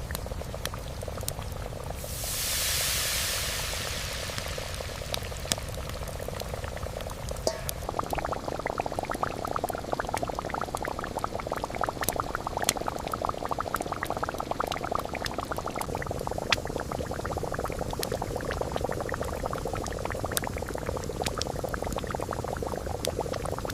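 A pot of liquid boiling, its bubbling dense and fast from about eight seconds in, with a brief hiss about two seconds in and scattered sharp clicks throughout.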